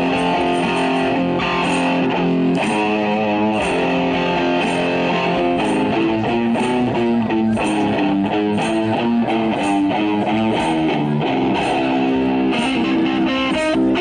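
White double-neck electric guitar played through a small portable amplifier, a bluesy melodic line of single notes stepping up and down. A light percussive tick keeps the beat about once a second.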